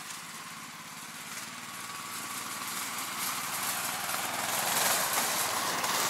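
Engine of a Rybak tracked motor towing unit ('motor dog') running under load as it climbs up a snowy bank, growing steadily louder as it comes closer.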